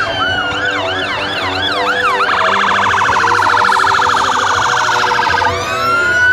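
Fire engine electronic sirens sounding in several overlapping patterns. A repeating yelp switches to a fast warble about two seconds in, then gives way to a long rising wail near the end, over a low engine rumble.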